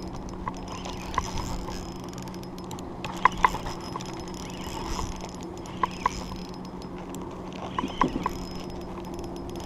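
Spinning reel worked against a hooked fish on light gear: a steady low hum under scattered sharp mechanical ticks, a few of them in quick pairs.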